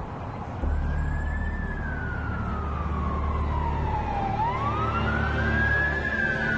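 Emergency vehicle siren wailing, its pitch sliding slowly down and then back up, over a steady low hum that starts about half a second in.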